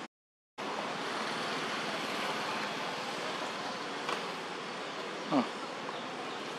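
Steady outdoor hum of buzzing insects after a half-second dropout at the start. A faint click comes about four seconds in, and a short falling call about five seconds in.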